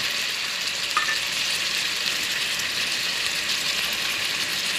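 Chicken pieces sizzling as they sear in an aluminium pot on an electric hot plate, a steady crackling hiss.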